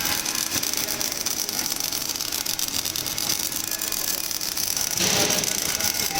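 MIG welding arc crackling and hissing steadily, with fine rapid crackle throughout; about five seconds in it gets louder and coarser.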